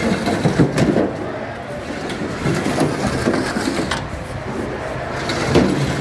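Busy large kitchen: background chatter of several voices with scattered knocks and clatter.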